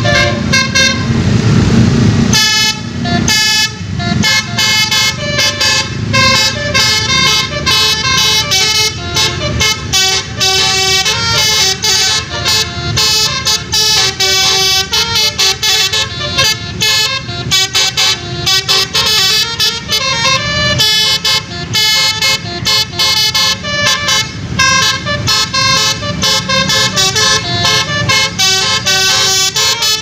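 A tour bus's Basuri-style telolet horn, a multi-tone electric horn, playing a fast melody of short staccato notes. It starts about two seconds in, after a brief stretch of loud low rumbling noise.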